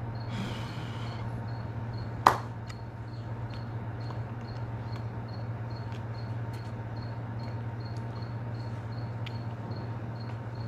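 Steady low hum with faint, even high ticking about three times a second, and one sharp click about two seconds in.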